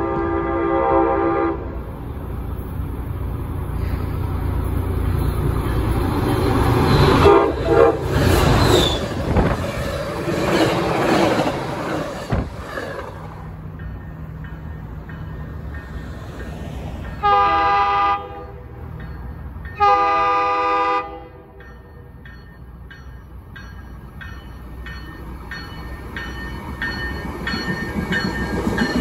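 A train horn ends its blast, then a train passes loudly for about ten seconds. A second train, an MBTA commuter train of bilevel coaches, sounds two horn blasts about a second long, then its wheels click steadily over the rail joints, growing louder as it approaches.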